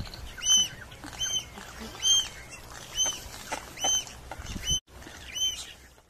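Swallow-tailed gull giving a string of short, high squeaky calls, each rising and falling in pitch, about one a second, while the pair mate.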